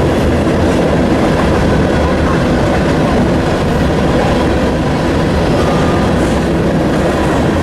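Freight train rolling past on the rails, a steady loud rumble of cars and wheels.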